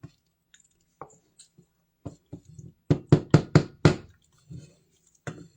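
A kitchen utensil knocking against a cooking pot: five quick, sharp knocks close together about three seconds in, with softer clicks and clatters before and after.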